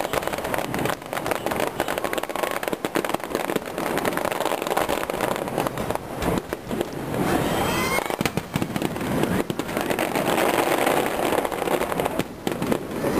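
Aerial fireworks display: shells bursting one after another in a rapid, continuous run of bangs and crackles.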